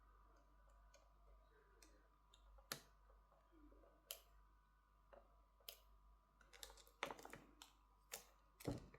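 Scattered small clicks and taps, about a dozen, of smartphone parts and tools being handled and pressed together during reassembly, over a faint steady hum.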